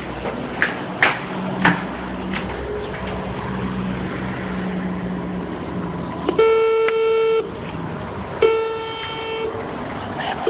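Apartment-building door intercom buzzing as its call button is pressed. There are two buzzes of about a second each, about a second apart, each a steady tone with a row of overtones. A few sharp clicks come before them.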